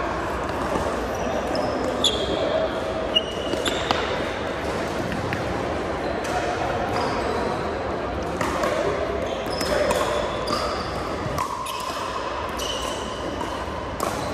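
Pickleball play on a hardwood gym court: sharp pops of paddles hitting the plastic ball, three of them close together in the first seconds, with short high squeaks of sneakers on the floor and indistinct chatter in the hall's echo.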